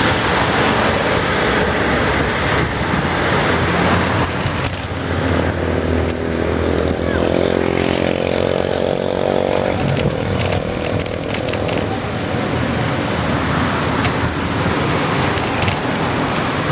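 Wind and road noise on a bicycle's handlebar-mounted camera while riding in traffic. A steady engine drone from a nearby motor vehicle joins about five seconds in and fades out around ten seconds in.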